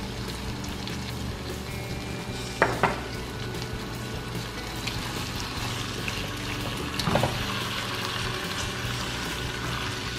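Raw shrimp sizzling steadily in hot oil in a nonstick wok as they are stirred with a plastic spatula. Two quick knocks of the spatula on the pan come about two and a half seconds in, and another about seven seconds in.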